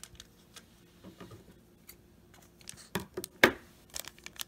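Foil-wrapped trading card pack crinkling and crackling as it is picked up and handled, in short bursts, the loudest about three and a half seconds in.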